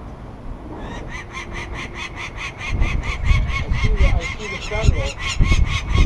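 Adult peregrine falcon's alarm call: a fast, harsh cacking of about six or seven notes a second, starting about a second in, the nest-defence call given at people handling its chicks. A low rumble runs under it from about three seconds in.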